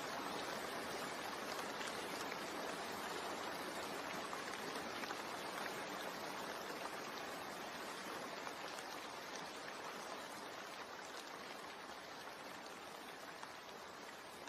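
Steady rain, an even hiss of falling water with faint drop ticks, slowly growing quieter as it fades out.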